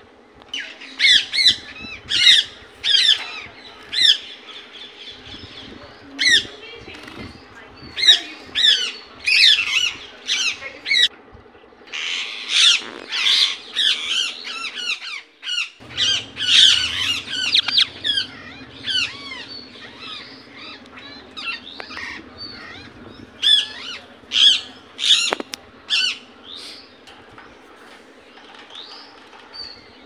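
Indian ringneck parakeet giving its natural call: short, shrill squawks repeated in bursts, with brief pauses between runs and the calls thinning out near the end.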